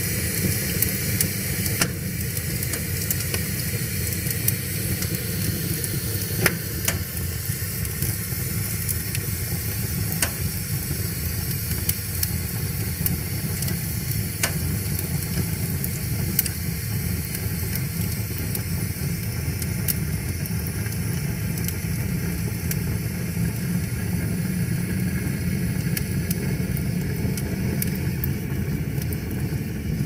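Split logs burning with tall flames in a steel fire pit: a steady low rush of fire with a hiss over it, and sharp crackles and pops every few seconds.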